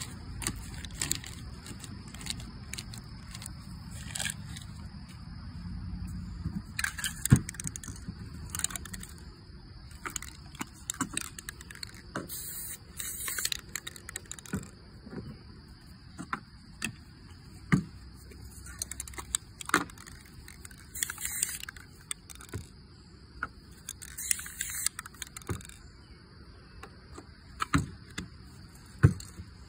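Spray-paint art being worked by hand: a crumpled plastic bag rustling as it is dabbed on the wet paint, then several short hisses from an aerosol spray-paint can a few seconds apart, among sharp clicks and knocks of cans and objects being handled and set down on the board.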